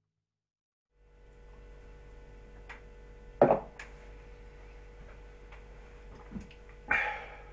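Steady low room hum after a second of dead silence, with a sharp knock about three and a half seconds in as a glass beer mug is set down on a wooden counter. A shorter, softer rustle-like sound comes near the end.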